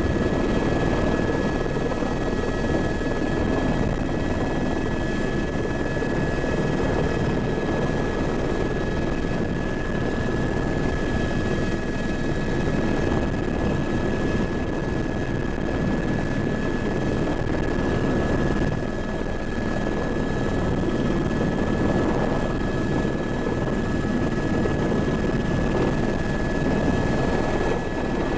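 Helicopter running steadily: a dense, even drone of engine and rotor with a steady high whine over it.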